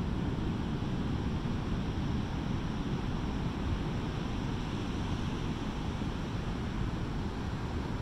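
Pacific Ocean surf breaking along a sandy beach: a steady, even rush of waves with no single crash standing out, and wind rumbling on the microphone underneath.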